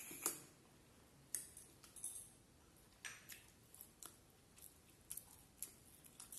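Close-up eating sounds: a couple of sharp wet smacks at the start as fingers are sucked clean, then scattered soft clicks and smacks of chewing with the mouth closed.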